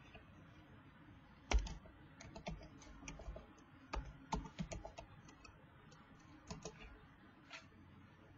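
Typing on a computer keyboard: irregular keystrokes in small runs, with one louder knock about one and a half seconds in.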